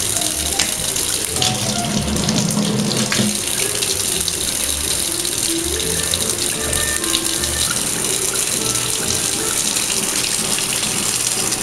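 Kitchen tap running in a steady stream into a stainless steel sink, with music playing underneath.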